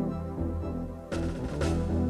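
Background music with a strong bass line and two short, sharp hits a little after a second in.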